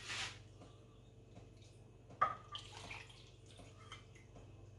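Warm water poured from a measuring cup into a bowl, a brief splash at the start. About two seconds in, a sharp knock and a few lighter rattles of kitchen utensils on the worktop.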